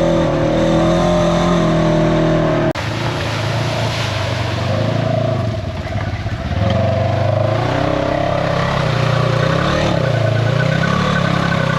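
Polaris RZR 900 side-by-side engine running under load. Its pitch dips and rises as the throttle changes. The sound breaks off abruptly for an instant about three seconds in, then carries on.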